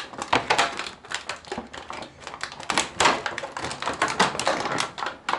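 Clear plastic blister tray crackling and clicking as an action figure is worked out of it with its rubber bands still on: an irregular racket of sharp plastic clicks and crinkles.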